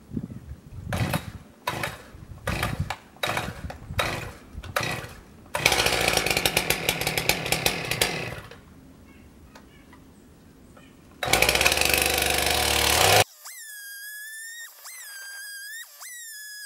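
Gas Stihl two-stroke chainsaw being pull-started with a quick series of cord pulls. It catches about five seconds in and runs loud and revving, drops low for a few seconds, then revs up loud again. Near the end it gives way abruptly to a high, gliding whistle-like tune in short repeated phrases.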